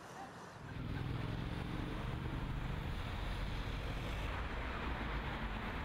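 Outdoor city ambience: a low, steady rumble of street traffic that comes in about half a second in, at the cut to a new shot.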